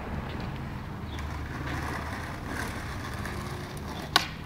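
Skateboard wheels rolling on asphalt with a steady low rumble. Near the end comes one sharp crack of the board's tail popping off the ground, then a loud wooden slap of the board hitting the pavement.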